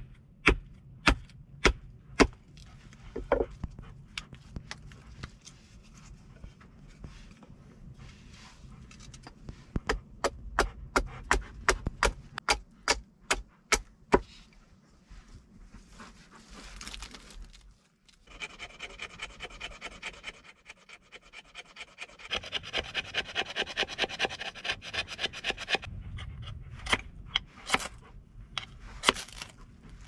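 Hand tools working wood: scattered sharp knocks, then a quick run of strikes about three a second, then a longer stretch of rapid rhythmic scraping strokes, with a few more knocks near the end.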